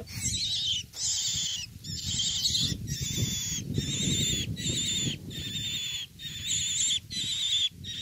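A young myna calling over and over from inside a cloth bag: harsh, wavering cries, about one a second. The cloth bag rustles underneath as it is handled.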